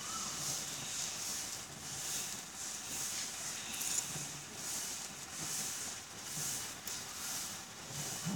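Wooden staff spun and swung through the air in repeated swishing whooshes, a little over one a second.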